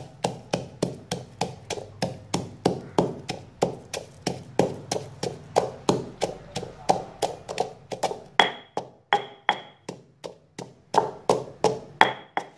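Stone pestle pounding garlic and green herbs in a stone mortar, a steady run of dull knocks at about three strikes a second. In the second half several strikes ring with a short high clink of stone on stone.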